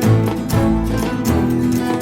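Instrumental background music: plucked guitar over sustained bass notes with a steady rhythm.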